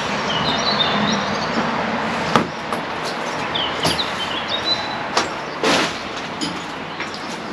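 Steady outdoor noise with a few sharp knocks and clicks, and birds chirping briefly in the background.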